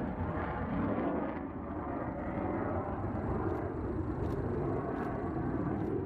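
SNECMA Atar 9C turbojet of a Mirage Finger (Dagger) fighter running steadily, a continuous deep rushing noise.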